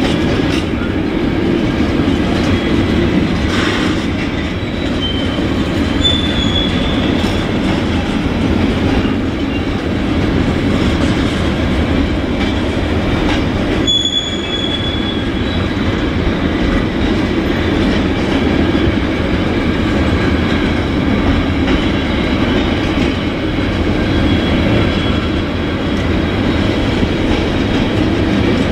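Freight train of container flat wagons rolling slowly past: a steady rumble of wheels on rail, with brief high wheel squeals about six seconds in and again about fourteen seconds in.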